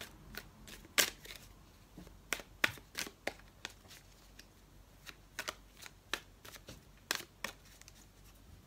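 A Radiant Wise Spirit tarot deck shuffled by hand, cards slapping and flicking together in irregular quick clicks, a few each second. The sharpest come about a second in and again near seven seconds in.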